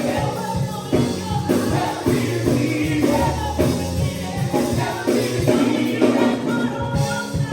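Gospel music at a church service: singing voices over a live band, with bass and a steady drum beat.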